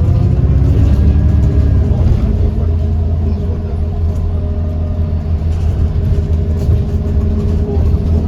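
Alexander Dennis Enviro400 MMC double-decker bus under way: a steady low rumble of engine and drivetrain with a drone whose pitch eases slightly in the first couple of seconds, then holds. The rumble belongs to a bus whose axles and turbo the uploader describes as loud and worn-sounding.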